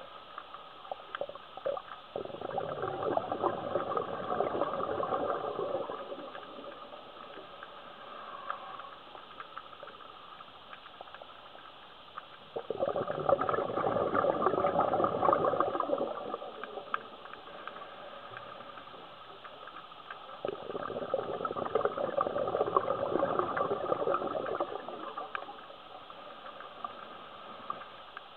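Scuba diver breathing out through the regulator: three long bursts of bubbling exhaust, about four seconds each, with quieter pauses between breaths.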